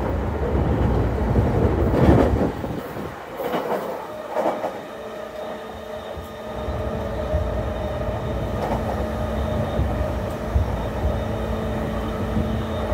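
JR East E233 series 0 electric commuter train running at speed, heard from inside the car. The wheels knock over rail joints in the first couple of seconds, the noise eases for a few seconds, then the train runs on with a steady droning hum.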